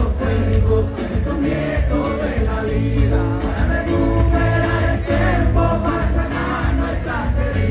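Live band playing a song: electric guitar, bass guitar and drums, with a woman singing lead.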